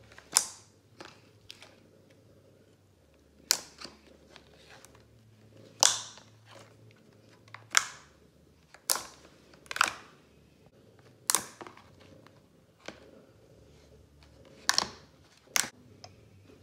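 Clear slime popping and clicking as hands press and stretch it, with air pockets snapping. About ten sharp pops come at irregular intervals.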